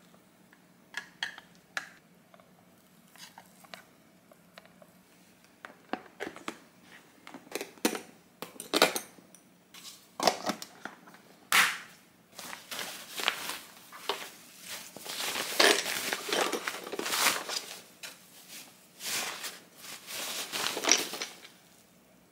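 Lunchbox being closed and wrapped: scattered clicks and knocks as the wooden lid is fitted onto a white lunchbox, then, from about halfway, continuous rustling of a cloth lunch bag being pulled up around the box and tied.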